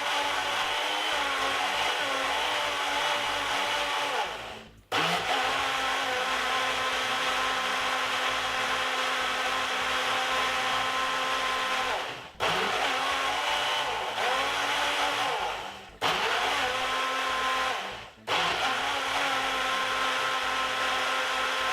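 Countertop blender motor running, blending a thick kiwi, cucumber and celery smoothie with little water. It is switched off briefly four times and restarted, its pitch wavering as the load shifts.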